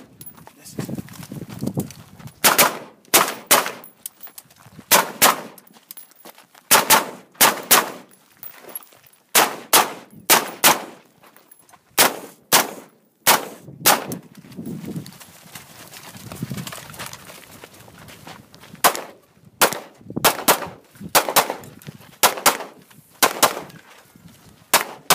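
A long series of rifle shots from an AR-style carbine, dozens in all, many fired in quick pairs with short pauses between strings.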